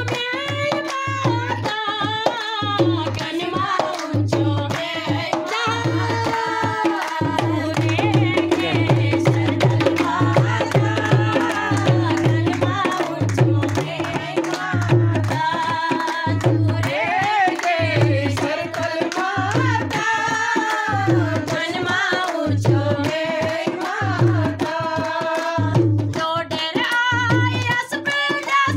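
Women singing a Hindu devotional bhajan to the Mother Goddess, with hand clapping, accompanied by tabla and dholak keeping a steady, even beat.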